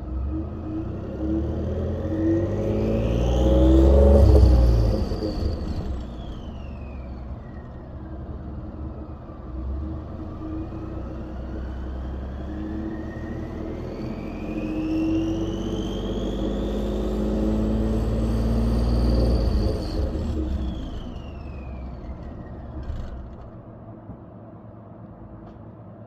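2013 Ford F-150's twin-turbocharged 3.5-litre EcoBoost V6 run up twice under load, its turbochargers whistling. Each time the whistle climbs in pitch with the engine, peaking about 4 seconds in and again near 19 seconds, then falls as the engine eases off and fades.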